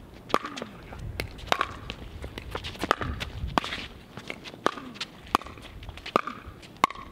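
Pickleball rally: paddles hitting the hollow plastic ball and the ball bouncing on the hard court, a string of sharp pops about once a second, with players' footsteps shuffling on the court.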